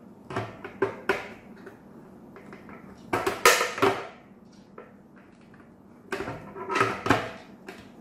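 Hard plastic parts of a humidifier water tank being handled and twisted together: a few sharp clicks in the first second, a loud scraping rub about three seconds in, and more rubs and knocks near the end.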